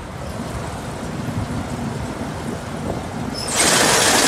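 Combine harvester with its draper header and feed drum running: a steady low rumble that turns suddenly louder and harsher about three and a half seconds in, with a hiss and rattle.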